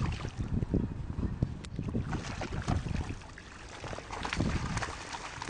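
Hooked salmon splashing and thrashing in shallow water at a pebble bank as it is landed, in irregular bursts with low buffeting rumble and scattered clicks.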